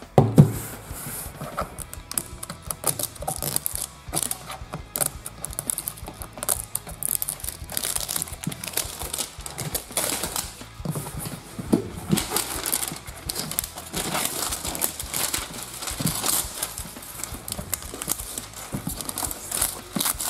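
Plastic wrap and a cardboard sleeve being torn and peeled off a toy package by hand: a continuous, irregular run of rustles, rips and small clicks.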